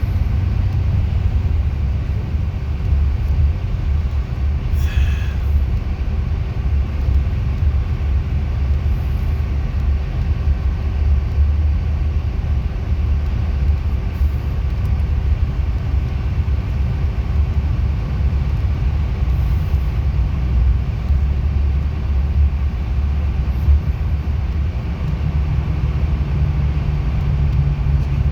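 Steady low engine and road rumble of a bus on the move, with a short high squeak about five seconds in.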